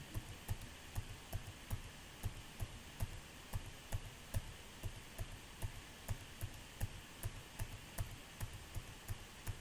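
Computer keyboard key, F11, tapped over and over in an even rhythm of about two and a half faint clicks a second, stepping a script through a debugger one statement at a time.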